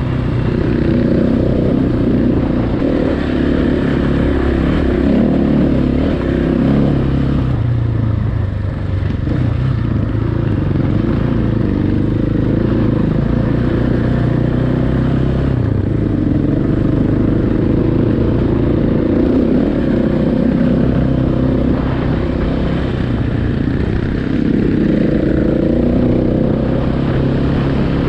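Single-cylinder enduro motorcycle engine running while riding off-road, its pitch rising and falling with the throttle.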